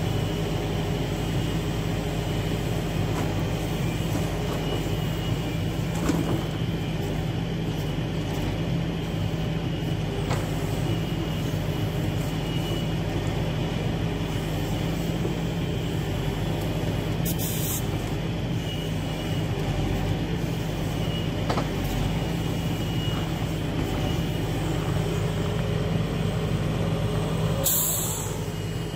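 Log truck's diesel engine running steadily to drive the hydraulic log loader crane as it lifts logs off the load. A few faint knocks, and two short hisses, one past the middle and one near the end.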